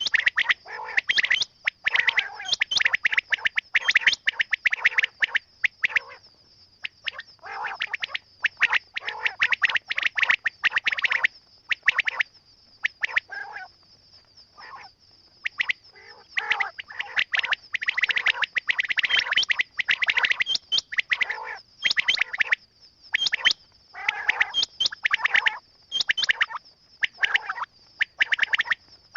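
Quail calling in dense, rapid bursts a second or two long with short pauses between, over a steady high-pitched tone.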